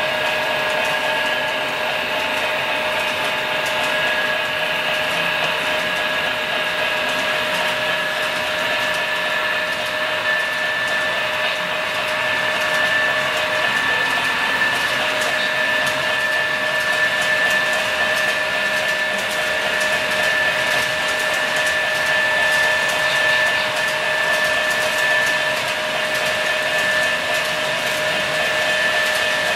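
HO scale model freight train of autorack cars rolling past: a steady mechanical whine with a high hiss of metal wheels on the track and faint fine clicking.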